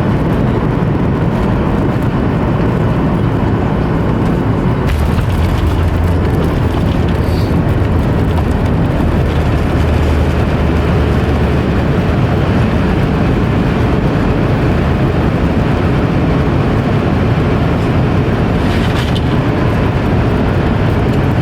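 Steady loud cabin noise inside a Boeing 737 MAX 8 airliner: engine and airflow rumble, with a deeper low rumble growing stronger from about five seconds in until about thirteen.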